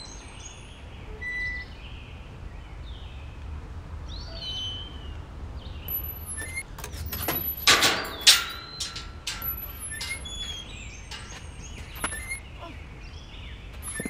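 Small birds chirping and whistling, with a few sharp clanks as the iron bars of a gate are grabbed and climbed, two loud ones close together about eight seconds in.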